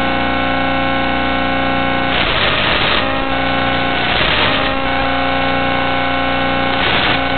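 Steady electronic buzz of an analog FPV video link as recorded by the goggles' DVR. It is broken by three short bursts of static hiss, about two, four and seven seconds in, as the video signal breaks up.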